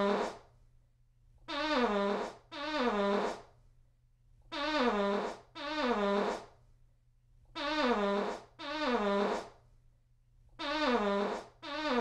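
Fart sound effect repeated on a loop: four pairs of short, pitched, buzzing blasts, the two in each pair about a second apart and the pairs about three seconds apart. Each blast wobbles and drops in pitch over less than a second.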